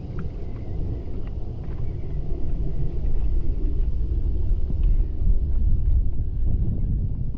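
Wind buffeting the camera's microphone, heard as an uneven low rumble that grows a little louder partway through.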